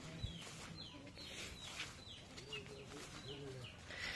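Birds calling faintly: short, falling chirps repeated about two to three times a second, with a few lower, drawn-out calls in the middle.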